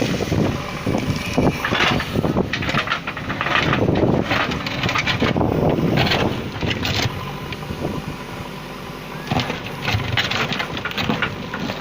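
JCB 3DX backhoe loader's diesel engine running, its sound swelling and easing with irregular noisy stretches over it; louder through the first half, quieter for a while later.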